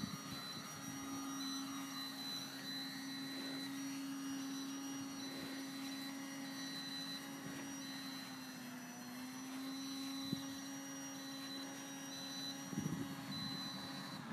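Control-line stunt model plane's engine running steadily in the distance, one even drone whose pitch dips briefly about two thirds of the way through.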